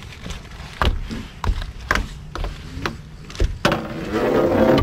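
Several sharp knocks and thumps on a boat deck, as people move about and handle gear. A louder rushing, buzzing noise comes in for about the last second.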